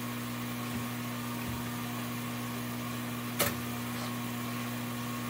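Steady low machine hum, like a motor running, with a single sharp click or knock about three and a half seconds in.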